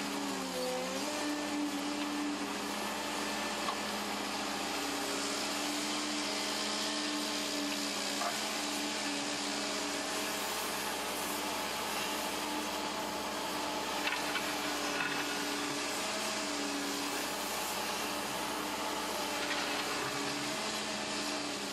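Cat 309 CR mini excavator running steadily, its C3.3B diesel engine and hydraulics working as it digs with the bucket. Near the start the engine's pitch dips briefly and then recovers.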